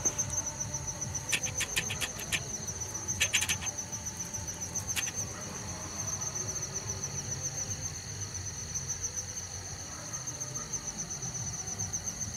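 Night insects trilling steadily: a high, fast-pulsing trill over a second steady note. A few clusters of sharp clicks come in the first five seconds.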